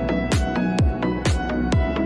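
Electronic dance music with a steady kick drum, about two beats a second, over sustained synth chords.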